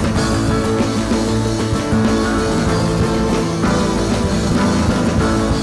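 Rock music playing continuously, instrumental with no singing.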